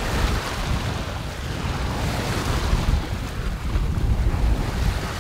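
Wind rumbling and buffeting on the microphone over a steady wash of sea water along a sailing yacht's hull.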